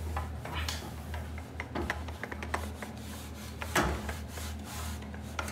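A cloth wiping and rubbing dust off a ceiling fan, with faint scuffs and small clicks and one sharper knock about four seconds in, over a steady low hum.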